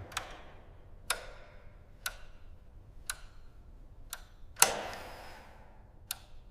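A slow series of sharp ticks, about one a second, each with a short ringing tail. A heavier, fuller knock falls a little past the middle.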